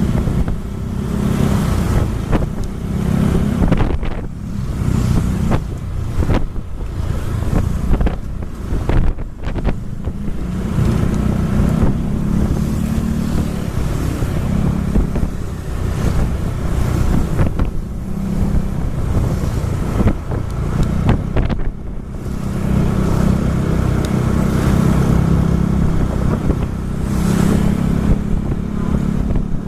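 Vehicle engine running at road speed, its pitch swelling and easing, with heavy wind buffeting the microphone.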